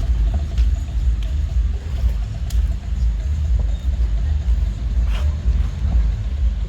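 A steady low rumble that rises and falls throughout, with faint voices and a few light clicks over it.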